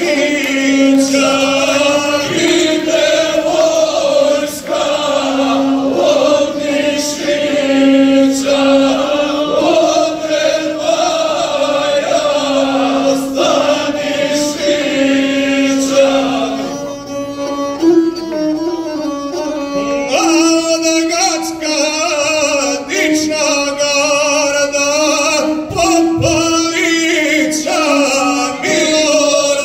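A group of men singing a traditional Serbian folk song together in long held notes, with a gusle bowed along.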